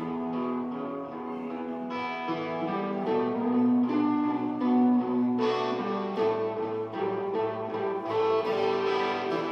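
Electric guitar playing a slow blues: plucked notes ringing out over steady, held low tones.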